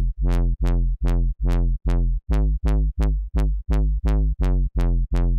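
Reveal Sound Spire software synth playing a square-wave bass house bass: the same low note repeated about three times a second. Each note starts bright and quickly turns dull as the Perfecto filter shapes it.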